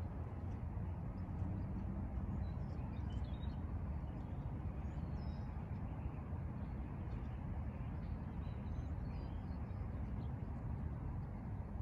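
Steady low outdoor background rumble with faint, scattered bird chirps. The crossing is idle: no bell and no train.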